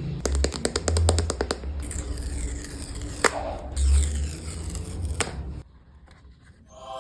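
Hands unboxing an iPhone's packaging: a quick run of small clicks, then rustling and scraping with two sharp taps, before it goes quiet near the end.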